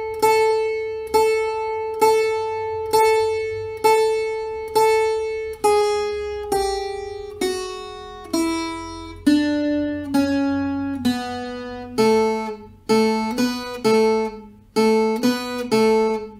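Viola caipira (ten-string Brazilian folk guitar) playing a single-note solo slowly. The same high note is plucked over and over about once a second, then the notes step down, and near the end a quicker back-and-forth figure of lower notes follows.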